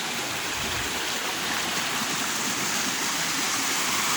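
Water rushing steadily over a dam weir, an even, unbroken wash.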